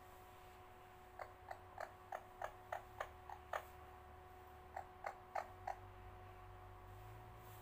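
A pet parrot making short clicking sounds, about three a second: a run of nine, a pause of about a second, then four more.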